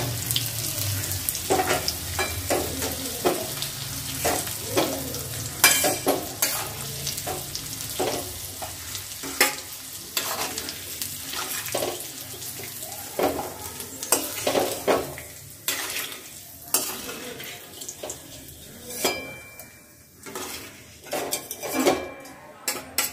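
Metal spatula scraping and tapping against an aluminium kadai as fried vegetables and nuts are scooped out into a steel bowl, over the sizzle of hot oil and ghee. The scrapes and taps come at irregular moments, and the sizzle grows quieter over the last few seconds.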